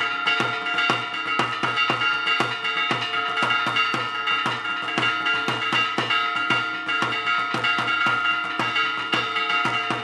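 Church bells rung rapidly by hand, their strokes ringing on over one another, together with a tamboril (a folk rope-tensioned drum) beaten with a stick. The strikes keep up a fast, unbroken rhythm.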